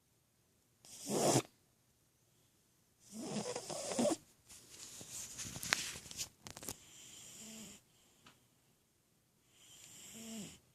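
Cat snoring in its sleep: four snoring breaths a few seconds apart, the third the longest, some with a low rattling tone.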